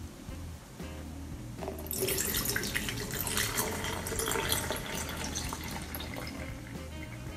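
Water poured from a plastic measuring cup into a plastic nasal rinse pot (neti pot), filling it to the marking line; the steady pour starts about two seconds in.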